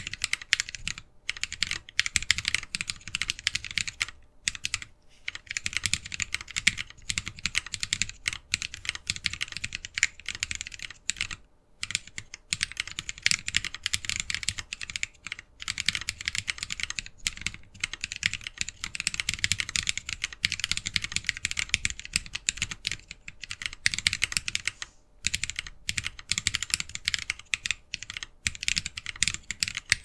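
Fast, continuous typing on a Lily58 Pro split mechanical keyboard fitted with Tribosys 3204-lubed Holy Panda tactile switches, an acrylic plate and case, and ABS DSA keycaps: a dense stream of key clacks, broken by a few short pauses.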